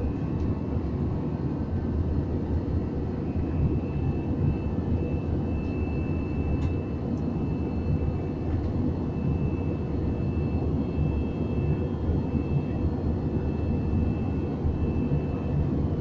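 Airliner cabin noise shortly after takeoff: a steady low rumble of engines and airflow, with a faint high whine that fades in and out.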